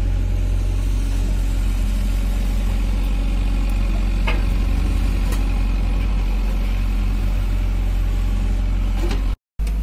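SANY SY65 excavator's diesel engine running steadily under hydraulic load as the boom and rotary log grapple move, with a couple of faint clicks about four and five seconds in. The sound cuts out briefly just before the end.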